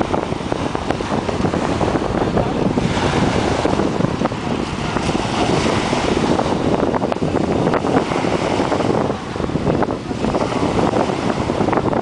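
Wind buffeting the microphone over small waves breaking and washing up a pebble beach, the wash swelling a few times.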